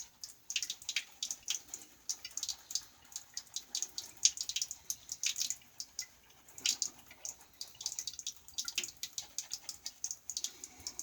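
Small vintage Koch badger shaving brush working stick soap into lather on wet skin: a fast, irregular run of wet squishing and crackling clicks.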